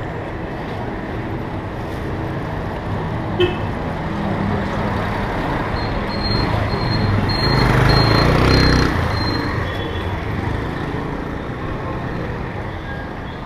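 Busy street ambience: steady traffic noise, with a vehicle passing close and loudest about eight seconds in. A short knock about three and a half seconds in.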